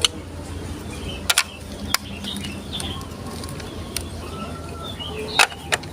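Marbles clicking against plastic Lego Duplo track pieces: a handful of sharp, irregularly spaced clicks, including a quick double click, over birds chirping in the background.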